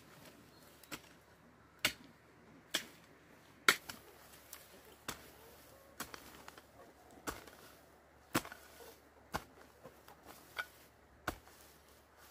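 Repeated chopping strikes, about one a second, each a short sharp knock, with a few softer knocks in between.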